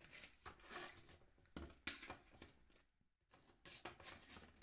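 Scallop shells clicking and scraping against each other and the plate as a scallop is picked out of its shell by hand, in short irregular clicks with a brief hush about three seconds in.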